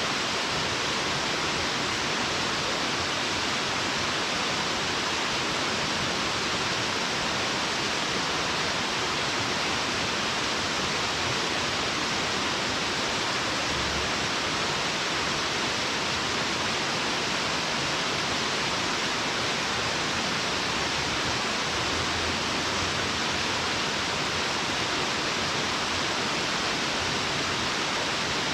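Steady rush of a waterfall, falling water heard from a distance as an even, unbroken roar with no changes.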